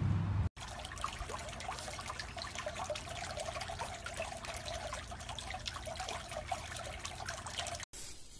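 Water trickling and splashing, a steady wash of small irregular splashes that starts abruptly about half a second in and stops abruptly near the end.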